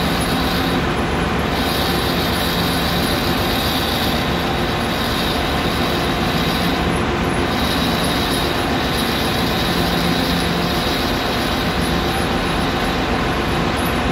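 Metal lathe running steadily, turning a brass fitting, with brass chips coming off the cutting tool. A constant machine drone with a higher hiss over it that breaks off briefly a few times.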